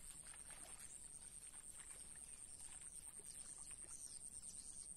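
Faint, steady, high-pitched insect chorus, with a few short falling chirps near the end.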